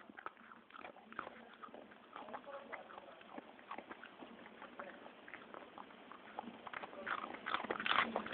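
A dog chewing and crunching small pieces of food picked up off a carpet: a rapid, irregular run of short crunches and clicks that grows louder about seven seconds in.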